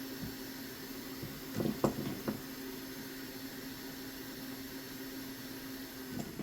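Steady hum and hiss of a fan-driven bench tool at a soldering station, with a few light taps of tools on the bench about one and a half to two seconds in and a knock near the end.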